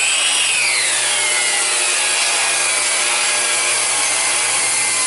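Ryobi benchtop table saw ripping a thick board of rough wild black cherry. The blade's high whine peaks just after the start, then drops in pitch and holds steady as the blade works through the cut.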